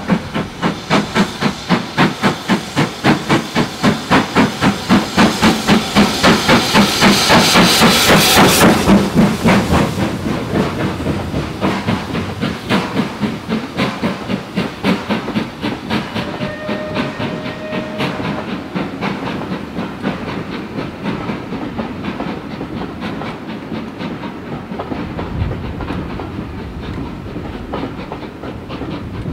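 BR Standard Class 5MT 4-6-0 steam locomotive No. 73082 'Camelot' under steam, its chimney exhaust beating in a steady rhythm. The beats grow louder to a peak with a rush of steam hiss as it passes beneath, about eight seconds in. Then the beats fade as the coaches roll past with a clickety-clack of wheels.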